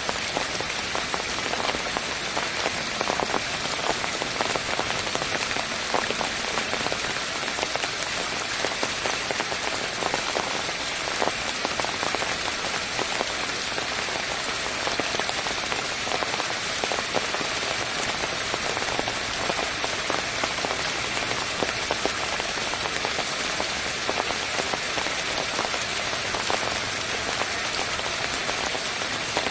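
Water running and splashing down a small cascade over flat rocks: a steady, even spatter with no pauses.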